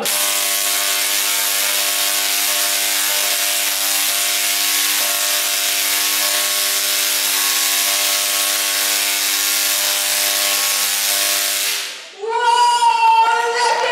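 A 3.5-million-volt Tesla coil firing arcs, giving a loud, steady buzzing crackle at a fixed pitch. It cuts off suddenly about twelve seconds in.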